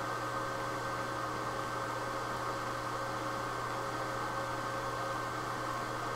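Fans of a running desktop computer with its case open, giving a steady whir with a low hum and a few constant tones.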